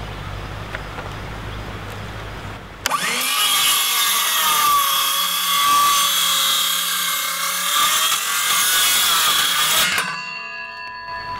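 Circular saw starting up about three seconds in and cutting at a 45-degree bevel into a wooden post for about seven seconds, a loud steady whine. It is then switched off, and the blade whines down as it coasts to a stop.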